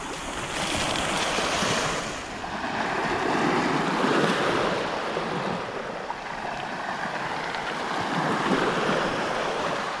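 Small sea waves washing in over a pebble shore, the surf swelling and falling back three or so times.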